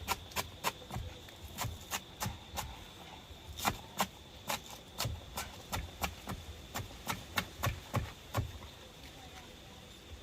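Knife chopping on a cutting board: a run of sharp, uneven knocks, two or three a second, that stops near the end.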